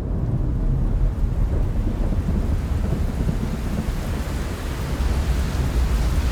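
Storm sound effect: a steady rain hiss over a continuous low thunder rumble, the hiss fading in at the start.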